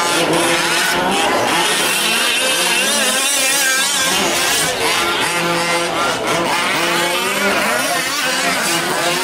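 Several 1/5-scale gas RC trucks' small two-stroke engines buzzing together, their pitch rising and falling over and over as the drivers work the throttles through the turns.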